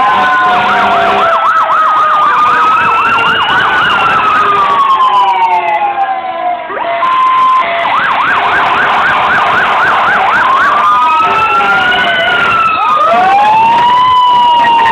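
Several fire truck sirens sounding at once as the trucks pass, switching between a fast yelp of about three rises and falls a second and a slower rising and falling wail.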